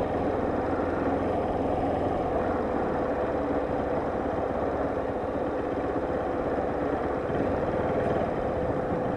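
Motorcycle engine running at a steady speed while riding, with an even drone that neither rises nor falls.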